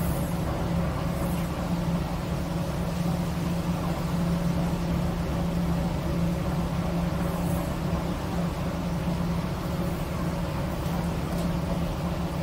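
A car ferry's MWM marine diesel engine running steadily, heard inside the wheelhouse as an even low hum that does not change.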